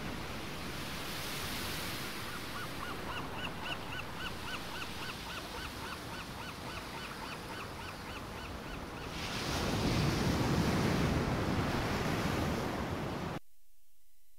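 Wind and rushing sea water aboard a sailboat in rough seas. For several seconds in the middle there is a quick run of about twenty short squeaky chirps, then a louder rush of water and wind before the sound cuts off suddenly.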